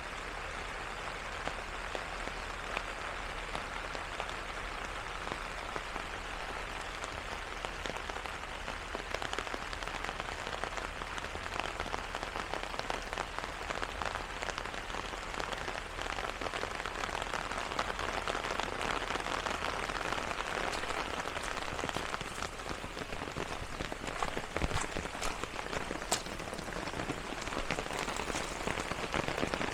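Steady rain falling, an even hiss of rain with louder single drops ticking now and then.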